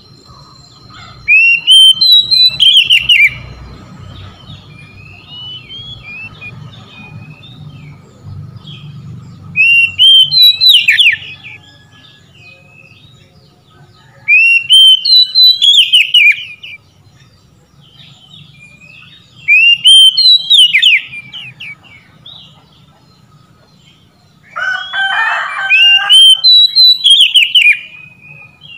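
Oriental magpie-robin singing: loud phrases of rising, slurred whistles about every four to five seconds, with soft twittering between them. A lower, rougher call overlaps the last phrase.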